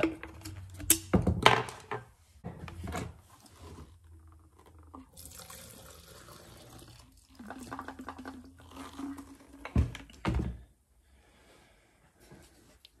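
Old two-stroke fuel mix poured from a Husqvarna 61 chainsaw's fuel tank into a plastic cup, a short hiss of liquid about five seconds in, as the tank is drained. Clicks as the tank cap comes off and the saw is handled, and a couple of knocks about ten seconds in.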